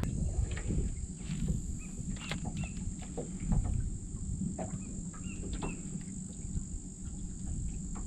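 Insects droning in a steady high-pitched hum, with a few short bird chirps and a low rumble underneath.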